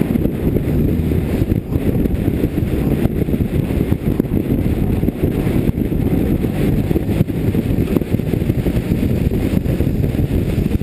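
Race car engine running steadily under load in fourth gear, the gear it is stuck in, mixed with heavy wind rumble on the onboard camera's microphone.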